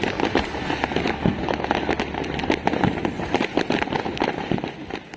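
Fireworks going off in a dense, rapid string of bangs and crackles.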